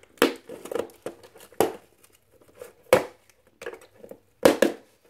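Small cardboard box being forced and torn open by hand: several short, sharp ripping and crinkling sounds, the loudest about three seconds in and again near the end.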